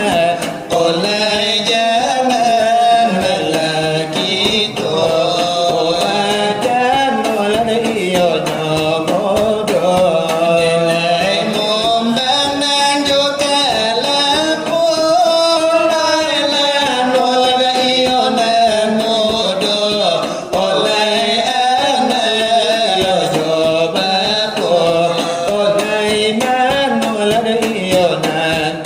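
Selawat dulang: voices singing a long, melismatic devotional chant, accompanied by quick, steady finger-strikes on brass trays (dulang).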